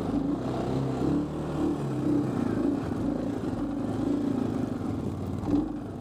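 Honda TRX350 FourTrax quad's single-cylinder four-stroke engine running under load, its pitch rising and falling with the throttle as the ATV crawls over rough logging slash.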